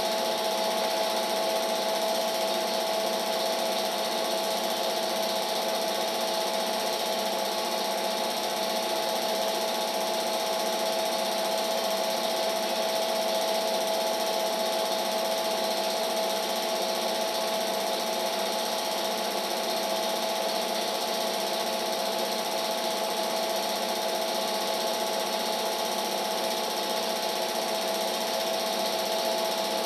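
Film projector running: a steady mechanical whirr and clatter with a constant hum, the sound of a silent home movie being transferred by projecting it.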